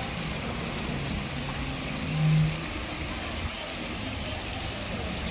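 Lazy river ambience: a steady rush of moving water with a low machine hum underneath. About two seconds in, a short low tone briefly stands out as the loudest sound.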